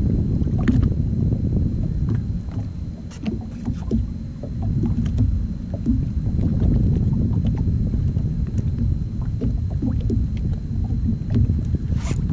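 Steady low rumble of wind and water around a jet ski on open sea, with scattered small clicks and one sharper click near the end.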